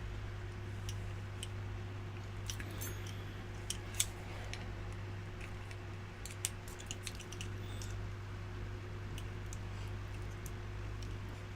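Scattered small metallic clicks and taps from a padlock being taken apart, with tools working at the clips that hold it together. The sharpest click comes about four seconds in, and a steady low hum runs underneath.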